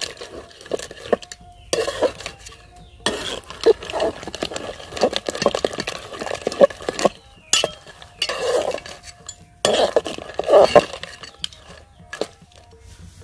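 Metal ladle stirring and scraping inside an aluminium cooking pot, with clinks of a steel bowl against the rim, in several stretches of clattering with short pauses between.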